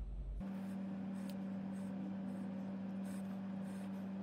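A steady low electrical hum that comes in about half a second in, with faint rubbing and a few light taps from hands handling a phone.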